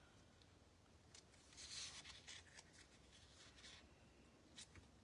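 Faint rustling and rubbing of patterned paper being folded and pressed into shape by hand, with a few light ticks; the rustle is loudest about two seconds in.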